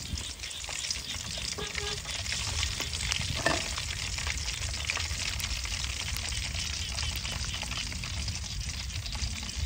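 Pork frying in hot oil: a steady, dense crackling sizzle, with a short louder sound about three and a half seconds in.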